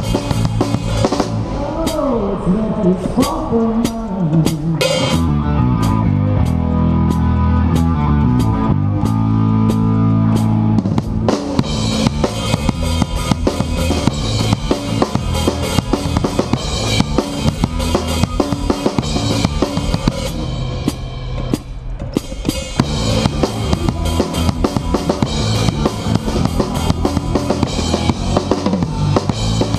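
Live rock band playing an instrumental passage, the drum kit loudest, with bass and electric guitar. A falling pitch glide sounds about a second in, and the band thins out briefly around two-thirds of the way through before coming back in full.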